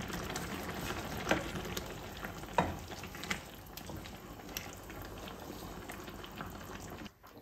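Octopus adobo in its sauce sizzling and bubbling in a pan while a spoon stirs it, knocking against the pan a few times in the first few seconds. The sound cuts off near the end.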